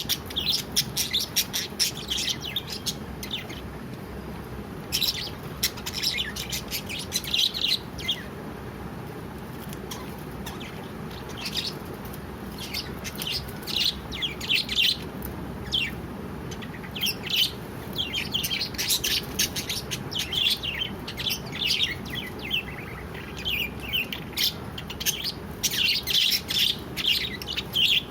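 Small pet parrots chirping in quick, high-pitched bursts and clusters, with short pauses, over a steady low background hiss.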